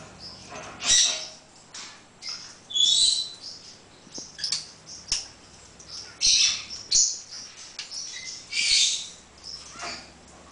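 Congo African grey parrot making a string of short, separate squawks and chirps, with sharp clicks in between.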